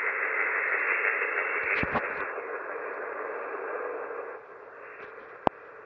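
Icom IC-M802 HF transceiver's receiver hissing with empty-channel band noise on 20-metre upper sideband, the hiss held inside the narrow voice passband. A few sharp clicks come through about two seconds in and again near the end, and the hiss drops in level a little past four seconds.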